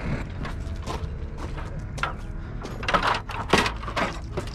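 A series of irregular clicks and knocks, with the sharpest two about three seconds in, over a low steady hum.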